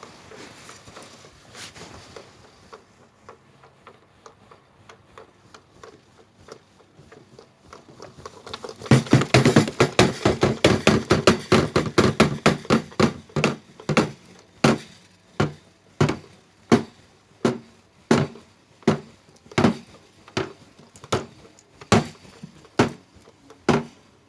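Washing machine in its spin cycle with the drum out of balance, banging against the cabinet. A loud, rapid series of knocks starts about nine seconds in, then the knocks come further and further apart toward the end, as if the drum is slowing.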